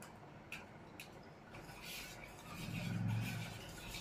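A spoon stirring a thin liquid batter in a steel bowl, scraping and clicking against the metal sides. A louder low rumble swells about three seconds in.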